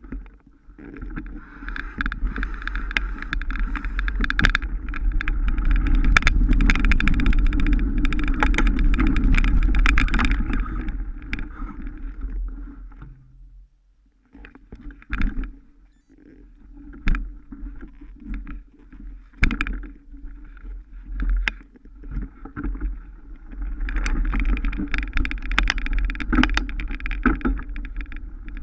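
Mountain bike ridden off-road: a steady rush of tyre and wind noise with a low rumble, broken by many clicks and rattles from the bike over rough ground. It dies away about halfway through, then picks up again with scattered knocks and builds back to full noise near the end.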